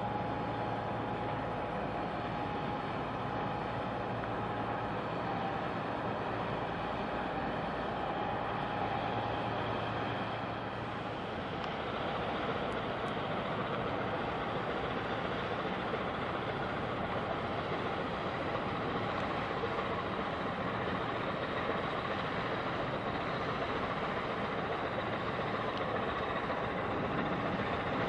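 Steady drone of a large container ship underway close by, its engine noise and the wash of water mixed into an even background, with a steady hum for the first ten seconds or so.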